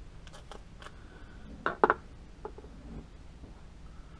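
Painter's tape being pulled off a glass-bedded rifle stock, with a few short sharp handling clicks and two loud snaps close together a little under two seconds in.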